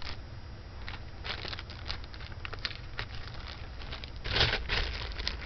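Thin plastic bags rustling and crinkling, with small clicks and taps as costume jewelry is handled. A louder rustle comes about four and a half seconds in.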